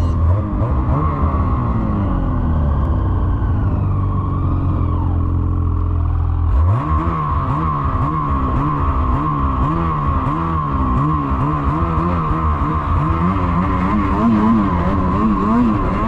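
Snowmobile engine running under way. About six and a half seconds in its pitch climbs sharply as the throttle opens, then keeps rising and falling over and over.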